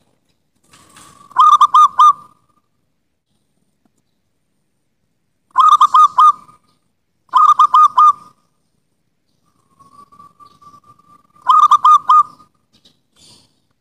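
Zebra dove (perkutut) cooing: four short phrases, each a quick run of rolling coo notes, with a faint drawn-out note leading into the last phrase.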